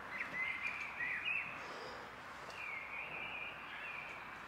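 Songbird singing: two high warbling phrases, the second beginning about two and a half seconds in, over faint outdoor background noise.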